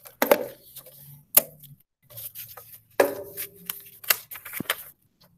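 Sheets of paper being handled, slid and pressed flat on a tabletop: rustling and scraping with several sharp crackles.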